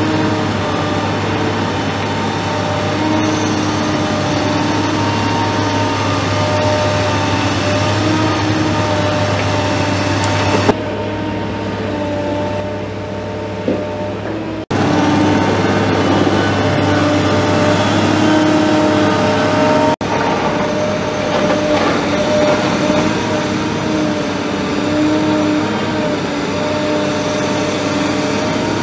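Caterpillar M316D wheeled excavator's diesel engine running steadily under working load as it swings and loads a dump truck, with a steady drone and several held tones that shift slightly in pitch. The sound turns abruptly quieter and duller about 11 seconds in and comes back about 15 seconds in.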